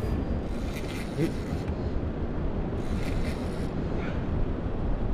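Wind buffeting the microphone, a steady low rumble, with two short bursts of higher hissing noise about a second in and again around three seconds in.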